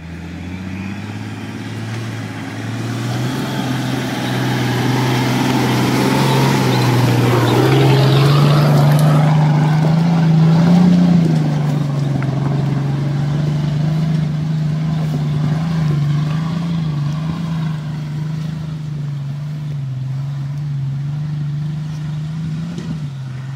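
Off-road 4x4 SUV engine pulling under load up a rocky track. Its note rises over the first ten seconds or so, is loudest about eleven seconds in, then holds steadier and a little quieter, with rough crunching over the stones in the middle.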